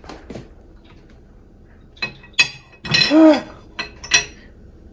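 Small ceramic dishes clinking against a ceramic plate and being set down on a stainless-steel drainboard: a few sharp, ringing clinks. The loudest sound is a brief rising-and-falling squeak about three seconds in.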